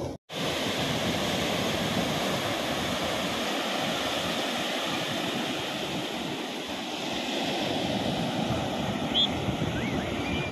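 Sea surf breaking and washing up a sandy beach, a steady rush of waves. It cuts out for a moment right at the start.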